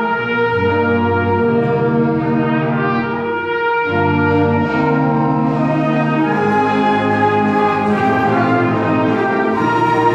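A school ensemble playing live, brass to the fore, in held chords that change every second or two over a moving bass line.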